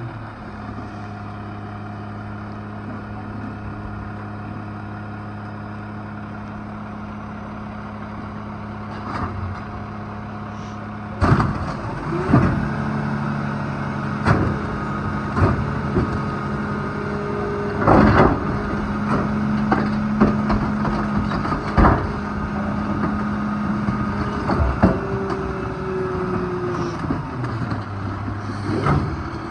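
Rear-loader garbage truck with a Loadmaster body, engine idling steadily. About a third of the way in, its packer starts: the engine speeds up and loud cracks and bangs come as bulk waste is loaded and crushed in the hopper. Near the end the engine settles back to idle.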